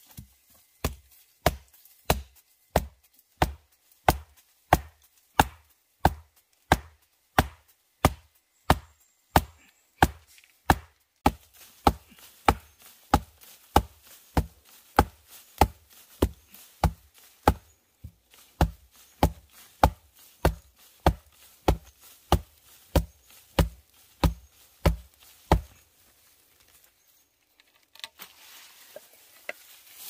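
A long, steady run of blows on wood, about three every two seconds and some forty in all. Each is a sharp crack with a dull thud beneath it, and they stop a little before the end.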